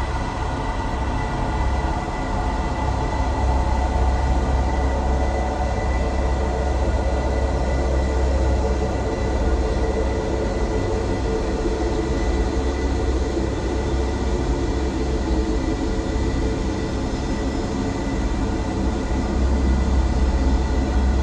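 Sci-fi UFO sound effect: a steady, deep low hum with a layer of held, slightly wavering tones above it. The deepest part eases a little in the middle and swells again near the end.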